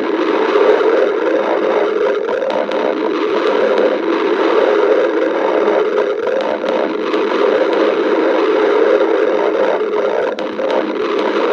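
A hungry stomach growling in a continuous churning rumble that keeps going without a pause.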